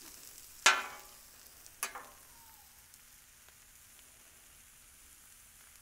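Potato and bacon hash sizzling faintly on a Blackstone flat-top griddle, with two sharp clanks about a second apart near the start, the first the louder, the kind a metal spatula makes against the griddle.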